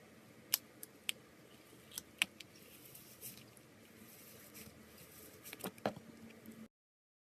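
Slime being squeezed and stretched by hand, giving small sharp sticky pops and clicks, scattered at first and several close together near the end, before the audio cuts to dead silence.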